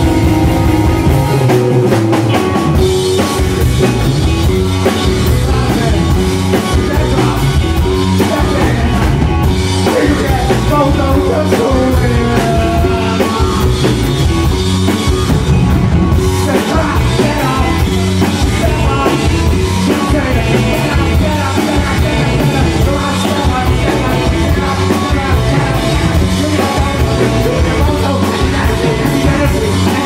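Live rock band playing loud: electric guitars over a steady drum-kit beat, with vocals.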